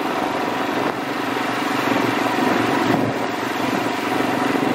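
ATV (quad bike) engine running steadily under way, with a broad rushing noise over it.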